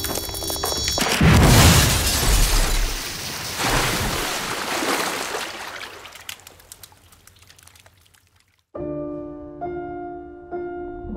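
A large aquarium's glass bursting with a loud crash about a second in, then a rush of pouring water that fades away over several seconds. Soft held music notes begin near the end.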